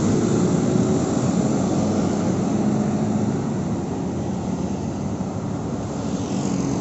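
Steady vehicle rumble: a continuous mechanical, engine-like noise that eases slightly near the end.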